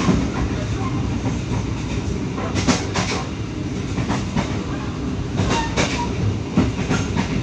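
Passenger train coach running along the track, heard from inside the carriage: a steady rolling rumble, with a few sharp clacks as the wheels cross rail joints.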